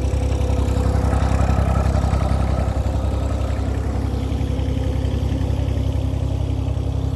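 Small diesel engine idling steadily, its even firing pulses running throughout.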